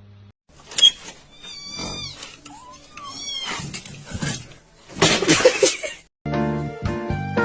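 A cat gives two high, wavering meows, then a louder, rougher noisy cry. Music starts near the end.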